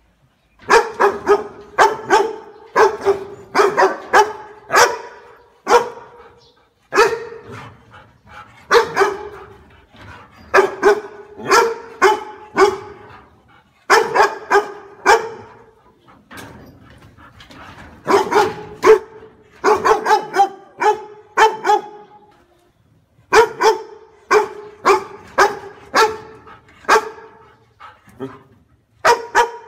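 A dog barking repeatedly, in runs of several quick barks with pauses of a second or two between them.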